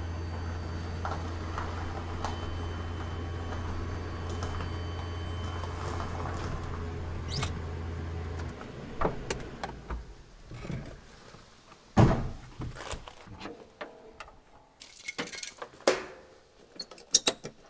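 A VW Golf II CityStromer electric car's drive system humming steadily as the car creeps forward, stopping about eight and a half seconds in. Then come clicks, clunks and rattles of the bonnet being opened and the charging cable handled, with one loud knock about twelve seconds in.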